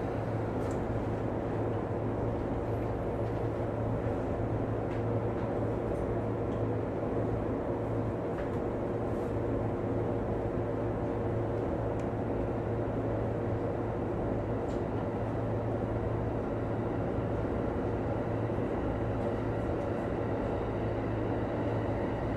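JR East electric commuter train pulling out of a station, heard from inside the front cab: steady running noise with a low hum.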